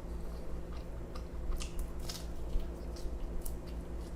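A man chewing a mouthful of pizza, with irregular soft clicks of the mouth and jaw, over a steady low hum.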